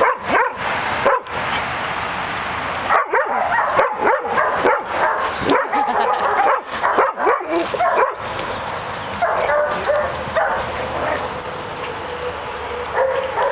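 A boxer barking in play at a bigger dog: a quick series of short barks in the middle, then a few longer, higher calls near the end.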